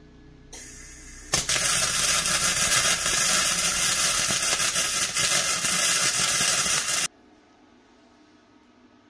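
Electric arc welding: a brief hiss, then the arc crackling loudly and evenly for about six seconds before cutting off suddenly.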